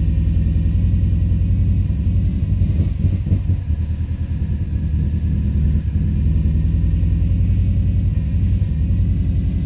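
2005 Subaru Forester XT's turbocharged flat-four engine idling with a steady low rumble, dipping briefly a few seconds in. The engine has a rough idle and is running rich.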